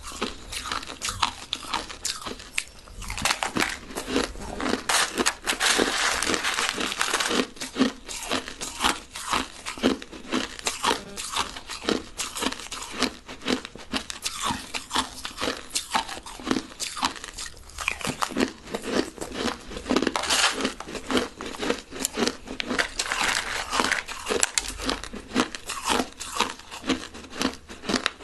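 Crushed ice being bitten and chewed close to the microphone: a dense, irregular run of sharp crunches, with stretches where they come thicker and louder.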